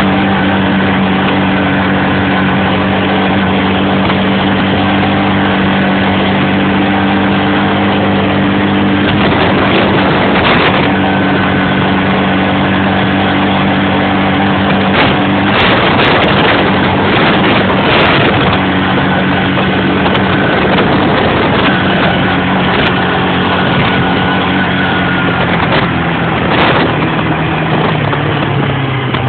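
Kawasaki KLF300 Bayou quad bike's single-cylinder four-stroke engine running hard at a steady high pitch on a run for top speed, with a few short clatters along the way. Near the end the engine note drops as it slows.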